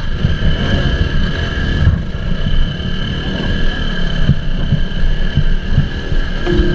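Motorcycle riding slowly over a rough gravel track, heard from the handlebar camera. Its engine rumbles low, with irregular thumps and a steady high whine over it.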